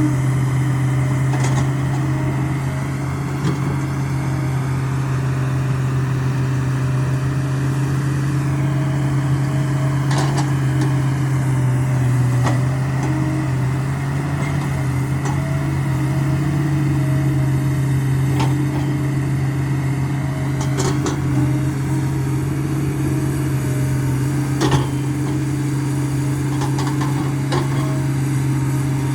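Hitachi excavator's diesel engine running steadily at working revs, with a few sharp knocks and cracks scattered through, the loudest near the end.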